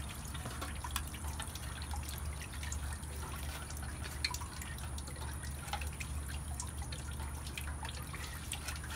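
Irregular dripping of liquid, with small clicks scattered through it, over a steady low hum.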